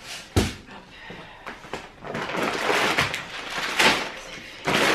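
Shopping bags rustling and crinkling as groceries are rummaged out of them, after a single sharp knock about half a second in; the rustling gets louder again near the end.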